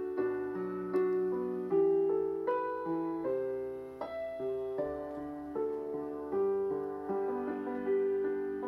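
Solo piano backing track playing a slow, gentle instrumental passage, each note or chord struck and left to fade.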